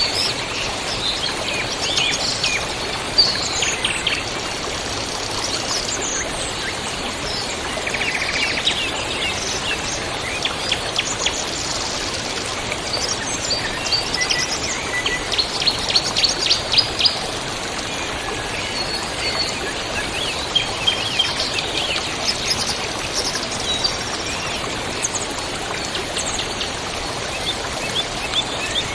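Several songbirds chirping and trilling over the steady rush of a river, with a burst of rapid trills about halfway through.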